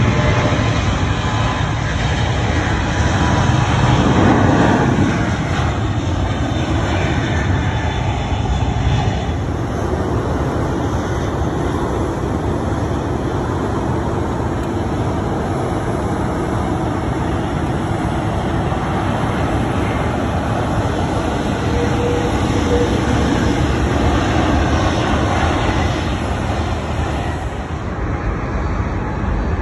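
Jet airliner engines running on the runways: a steady, loud rush of jet noise that swells slightly about four seconds in.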